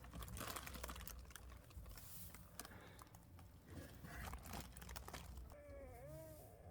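Faint scattered clicks and crackling, like something being handled, with a short wavering pitched call near the end.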